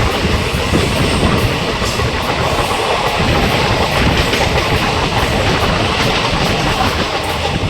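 Passenger train running at speed, heard from on board an ICF coach: a loud, steady rumble and rattle of the coach and its wheels on the rails.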